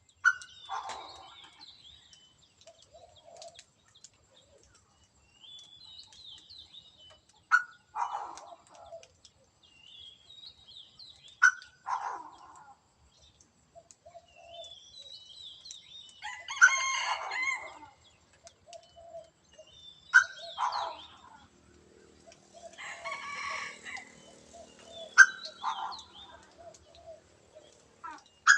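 A quail crowing: a short, loud call repeated every few seconds, about seven times, with smaller birds chirping faintly between the calls.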